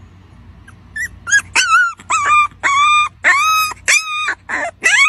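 Dog whining and yipping: a run of about ten short, high-pitched cries, each rising and then falling in pitch, starting about a second in.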